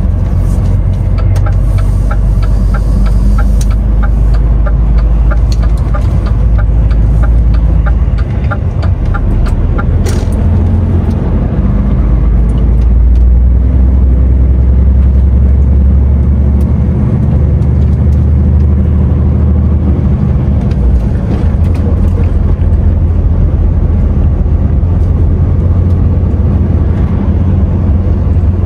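DAF XF 510 lorry's PACCAR MX-13 six-cylinder diesel running while the truck is driven, a steady low drone with road noise. A regular ticking, about two ticks a second, runs for the first ten seconds or so and then stops.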